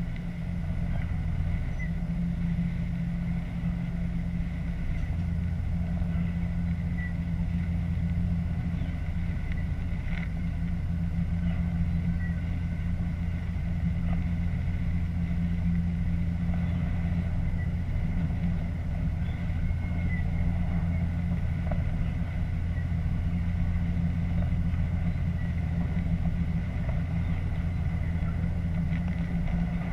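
Diesel train running steadily at speed, heard from inside the driver's cab: a continuous low engine and running hum with faint scattered ticks.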